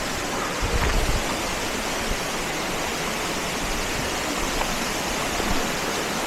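Steady rush of a waterfall's falling water, an even hiss with no let-up. A brief low rumble comes in about a second in.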